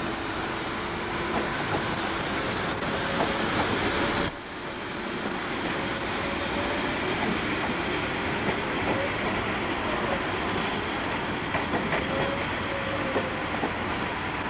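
Swiss Federal Railways passenger coaches rolling slowly through a curve, the wheels running on the rails with a clatter and brief high squeals from the flanges on the bend.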